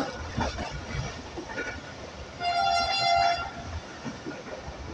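Train horn sounding once for about a second, midway, over the running noise of a moving railway carriage with scattered wheel clicks.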